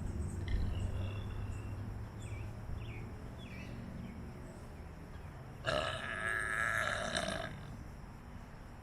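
A person's long, loud burp, lasting nearly two seconds, about six seconds in.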